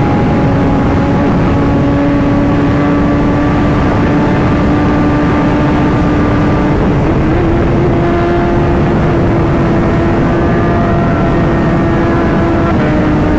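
Kawasaki ZX-10R's inline-four engine running at steady revs under way, over a constant wash of wind and road noise. The engine note steps up slightly about seven seconds in and drops back just before the end.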